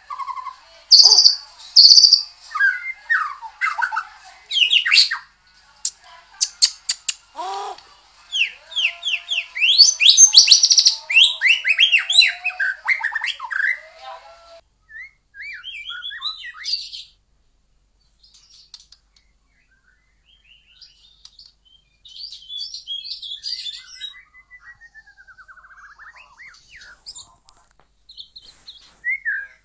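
White-rumped shama singing a loud, varied song of sliding notes and quick repeated phrases, with a fast run of falling notes about ten seconds in. About halfway through the song drops away to a few seconds' pause. It resumes softly, then turns loud again near the end.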